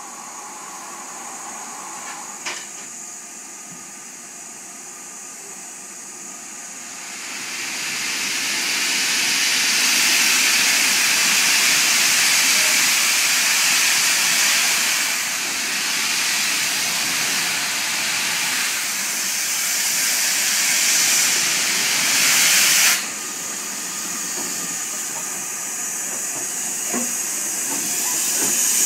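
LNER K4 steam locomotive 61994 blowing off steam with a hiss. A soft hiss swells to a loud, steady hiss about a quarter of the way in, cuts off suddenly about four-fifths through, then builds again near the end.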